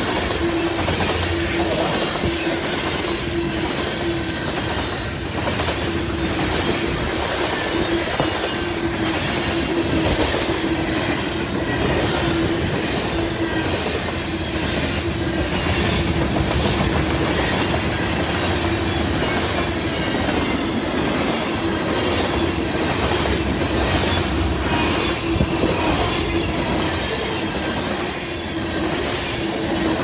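Freight cars (tank cars, then covered hoppers) rolling past close by: a steady rumble of steel wheels, with repeated clicks as the wheels cross rail joints and a steady whine running underneath.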